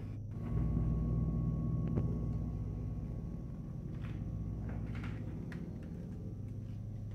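A low steady drone, with a few faint clicks and knocks around the middle as a door is pushed open.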